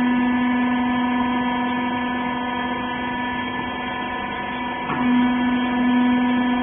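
Hydraulic power unit of a rag compression baler running with a steady hum. About five seconds in the pitch dips briefly and the hum then runs on a little louder.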